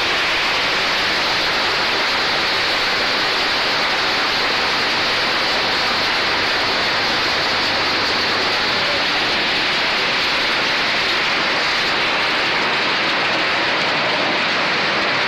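PET bottle label remover machine running, with a steady, loud rush and splashing of water as the wash water pours out carrying the stripped labels.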